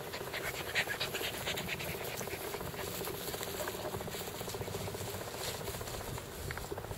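Light rustling and scratchy clicks of a seven-week-old pit bull puppy moving through grass close to the microphone, busiest in the first couple of seconds, over a faint steady drone.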